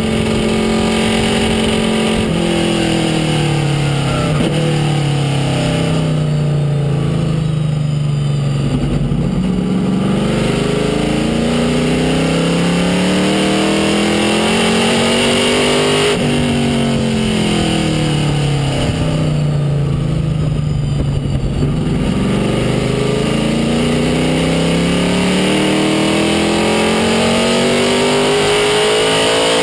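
Race car V8 heard from inside the cabin of a Chevrolet Monza, running hard at speed. Its pitch slides down twice, off the throttle around 8 and 20 seconds in, then climbs again under acceleration, with a sudden jump in pitch at a gear change about 16 seconds in.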